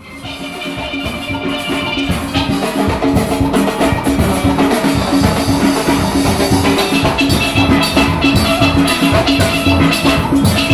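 A steel orchestra playing live: many steelpans ringing out chords and melody over a steady drum beat, fading in over the first second or two.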